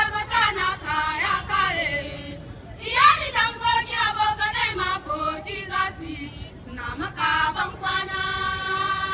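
A group of young women singing together as a choir, in short phrases that rise and fall, ending on one long held note.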